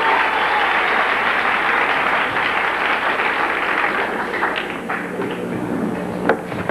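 Theatre audience applauding, the clapping thinning out toward the end, with a single sharp knock near the end.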